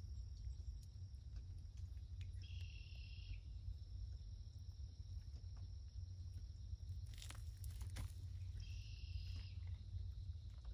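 Insects calling: a steady high-pitched drone, with two louder chirping calls of about a second each, one about two and a half seconds in and one near the end, over a low steady rumble. Two faint clicks come shortly before the second call.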